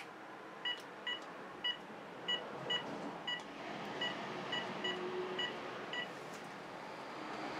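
Telephone keypad beeps as a number is dialled: about eleven short beeps of the same pitch, one per key press, spread irregularly over about six seconds.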